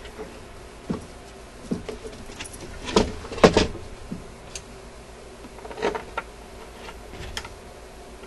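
A handful of separate knocks, clunks and scrapes as a metal radio chassis is handled and fitted into its wooden cabinet, the loudest a cluster about three to three and a half seconds in.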